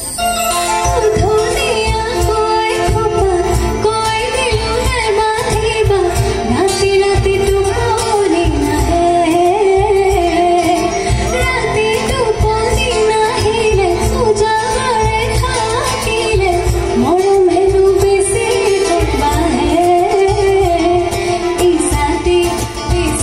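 A woman singing a song live into a microphone over a small acoustic band of guitar, keyboard and hand drums, with a steady beat.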